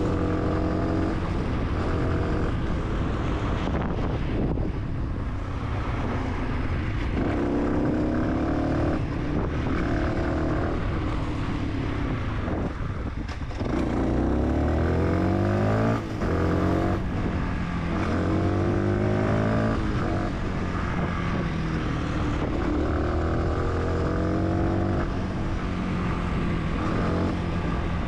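Fantic 125 supermoto's single-cylinder engine under way, its revs climbing repeatedly through the gears with a drop at each shift. It eases off and slows about halfway through, then pulls away again with several more rising runs.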